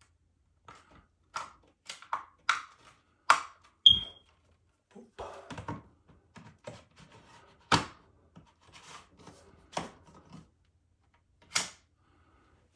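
Plastic clicks and knocks from fitting a hardwired smoke detector onto its ceiling mounting base, with one short high chirp from the detector about four seconds in.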